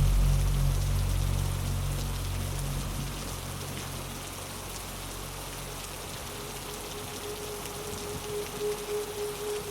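Steady rain falling, with a low dark-ambient synth drone that fades out over the first few seconds and a soft held tone that comes in about two-thirds of the way through.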